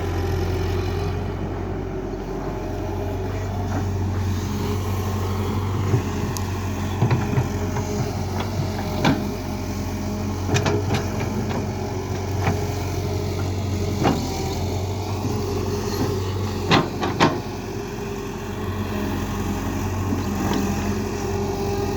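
Excavator's diesel engine running steadily, with a series of short, sharp knocks scattered through it, two of them close together near the end.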